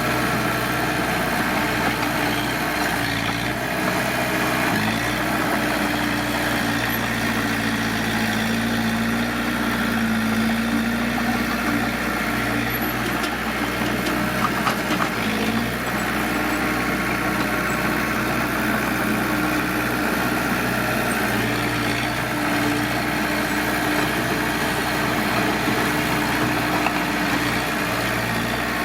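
Diesel engine of heavy earthmoving machinery running steadily, its pitch shifting a few times as it works, with a few short knocks about halfway through.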